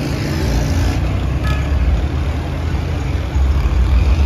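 Road traffic passing close: car engines and tyres making a steady low rumble that swells near the end as an SUV goes by, with one brief sharp sound about a second and a half in.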